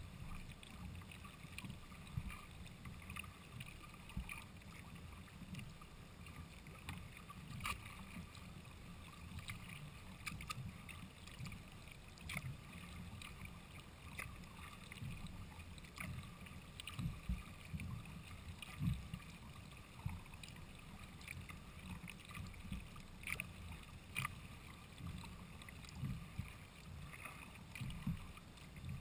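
Faint water sounds of a sea kayak under way: water washing along the hull and paddle strokes, as soft irregular bumps with a few light clicks.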